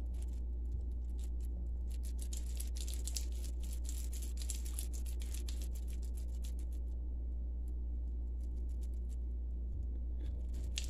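Hands pressing and rolling a sticky cream cheese, cranberry and walnut mixture into balls in a glass bowl, making faint scattered clicks and crackles, over a steady low hum.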